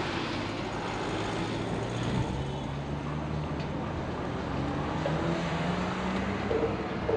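A vehicle engine running, its pitch rising slowly over several seconds, over a steady background hiss.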